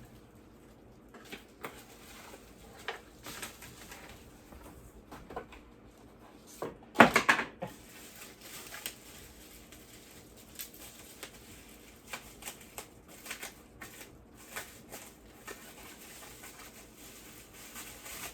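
Scattered clicks and rustles of a wireless charger's packaging being opened and handled, with a louder burst of rustling and scraping about seven seconds in.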